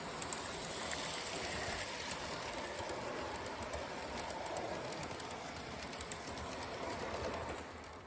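A train running on rails with a steady rumbling noise and light clicking, fading out near the end.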